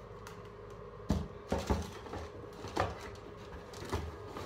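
About five short knocks and thumps of things being handled and set down, over a steady faint hum.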